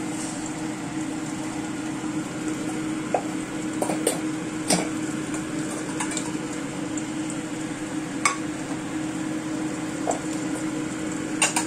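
Beaten egg with shrimp frying in hot oil in a non-stick pan: steady sizzling, with a few short sharp pops scattered through it, over a steady low hum.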